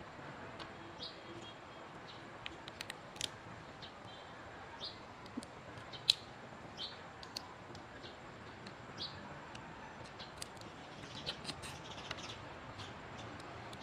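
Eating cooked mud crab by hand: scattered sharp clicks, smacks and squeaks from chewing and from picking the shell apart, the loudest about halfway through, over a faint steady hiss.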